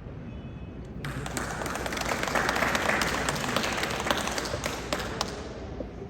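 Audience applauding. The clapping starts about a second in, swells, then dies away near the end.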